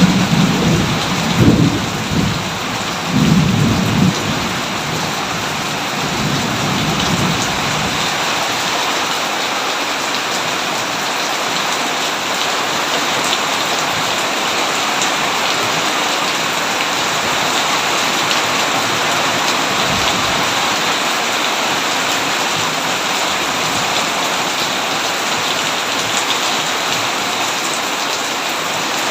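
Steady heavy rain with rolling thunder: low rumbles swell in the first several seconds, loudest about a second and a half and three to four seconds in, then fade, leaving the even hiss of rain.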